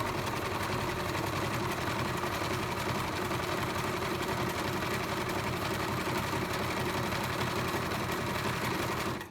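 Singer 5137 sewing machine running steadily at speed, its needle going with a fast, even rhythm while sewing a zigzag stitch; it stops abruptly at the very end.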